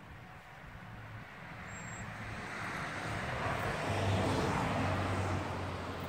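A motor vehicle driving past, its engine and tyre noise swelling to a peak about four seconds in and then fading.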